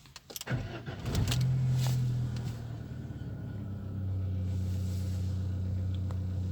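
Car petrol engine cranked by the starter and catching about a second in. It flares briefly to higher revs, then settles to a steady idle that the owner puts at about 800 rpm while chasing a P0507 high-idle fault code.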